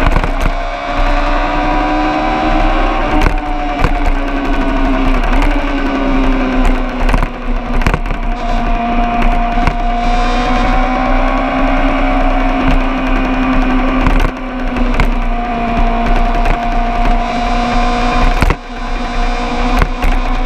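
Vehicle engine running steadily on a race track, its pitch drifting a little and dipping briefly about five seconds in, with several sharp clicks over it.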